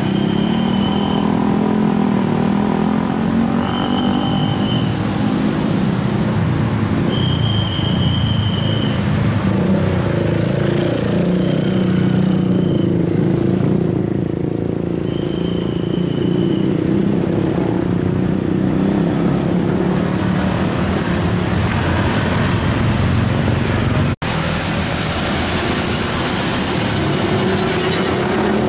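Car and motorcycle engines running in slow, queued traffic. During the first half a short, steady high tone repeats about every four seconds. About three-quarters of the way through, the sound cuts out for an instant and is replaced by the hiss of tyres and rain on a wet road as vehicles pass.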